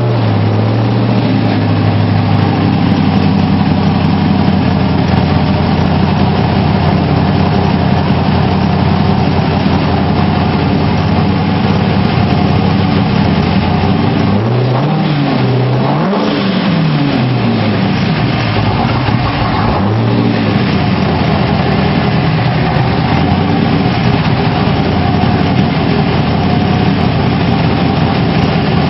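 Car engine running loud at a steady pitch. About halfway through the pitch drops and climbs back up, as the engine comes off and back on the throttle, then it holds steady again.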